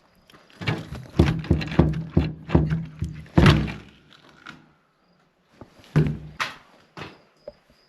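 A series of hollow thunks and knocks, a quick cluster of them, a short pause, then a few more near the end.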